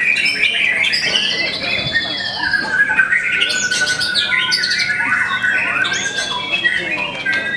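White-rumped shamas (murai batu) singing, several birds overlapping in a dense run of varied whistles, trills and harsh squawking notes.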